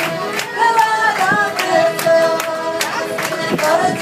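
Live accordion music with singing, over a steady sharp beat of about two and a half strokes a second.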